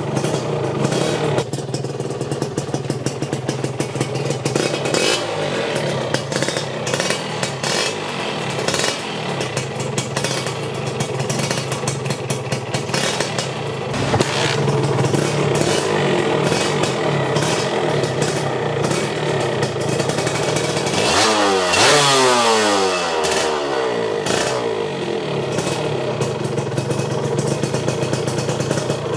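Suzuki Satria 120 RU's two-stroke single-cylinder engine idling through a Malaysian AHM (Ampang Hoong Motor) exhaust, with a couple of light throttle blips and one fuller rev past two-thirds of the way that rises and falls back to idle.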